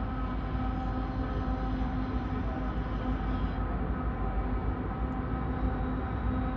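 Norfolk Southern train passing on a curve: a steady low rumble with a steady droning hum over it.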